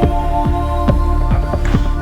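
Electronic background music with a steady kick-drum beat, about two beats a second, under held synth tones.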